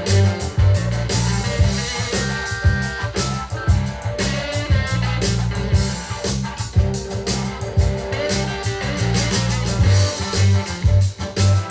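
Guitar rock music with drums and heavy bass, played through Canton GLE 70 loudspeakers as a sound test.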